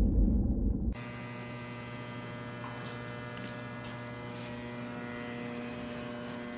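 Tail end of music cutting off about a second in, followed by a steady electrical hum with many even overtones.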